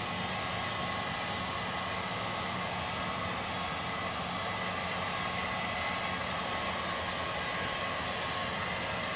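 A steady machine drone with a constant high whine running through it, unchanging throughout.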